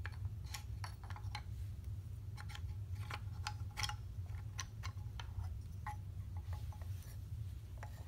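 Small wooden animal figures clicking and clattering against each other and the wooden toy ark as they are lifted out and set down: irregular light taps, a few at a time, over a steady low hum.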